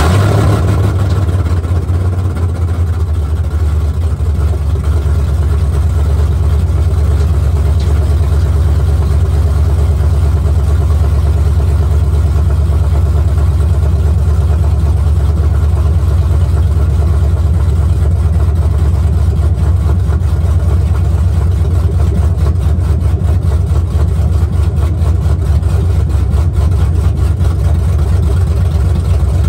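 Engine of a Chevrolet square-body truck idling steadily just after starting, loud and close.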